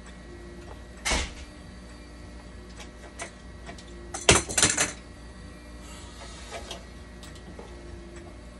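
Handling noise from hands working inside a dialysis machine's hydraulics: a sharp knock about a second in, then a louder cluster of clicks and rattles a little after four seconds, over a steady low hum.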